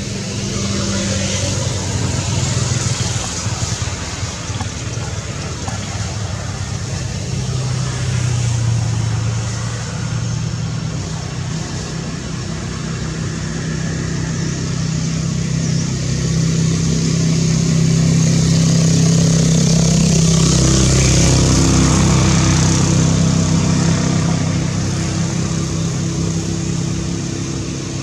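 A motor vehicle engine running, with a steady low hum that swells to its loudest about two-thirds of the way through and then eases off.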